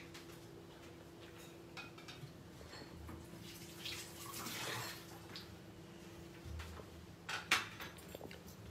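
Gas stove burner flame hissing around a lump of charcoal being heated on it. The hiss swells for about a second and a half near the middle, over a faint steady hum. A few sharp clicks and a knock come near the end.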